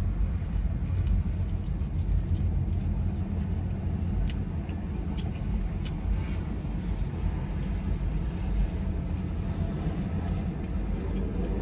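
Low, steady rumble of a passing train, with close-up chewing clicks and smacks from eating a chicken wing for the first several seconds.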